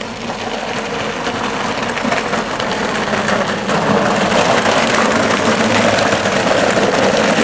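Go-kart running along a tarmac lane, getting steadily louder as it approaches and passes close by.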